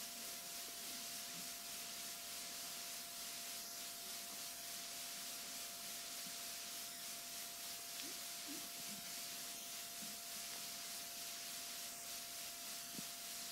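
Faint steady hiss with a thin steady tone underneath: the recording's noise floor in a quiet hall before the talking starts.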